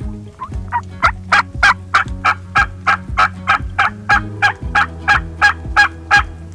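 Wild turkey calling: a long, even run of about eighteen short, sharp notes, roughly three a second, fading in and stopping abruptly after about six seconds, over background music with a steady beat.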